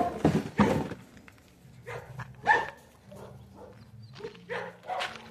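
Dogs barking in short, separate barks, with a burst of barks in the first second and the loudest single bark about halfway through.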